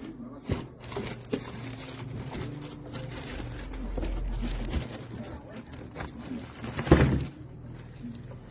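Handling noises: packaging rustling and crinkling with small knocks, and a louder thump about seven seconds in.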